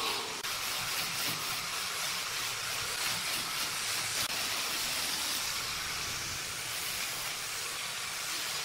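Handheld angle grinder with an abrasive disc sanding and shaping a curved wooden handrail: a steady hiss of the spinning disc grinding the wood.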